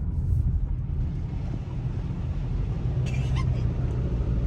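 Steady low rumble of a car moving through a flooded street, with a short high-pitched voice-like cry about three seconds in.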